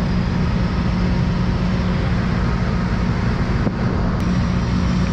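An engine running steadily at a constant speed: a loud, even drone with a strong low hum.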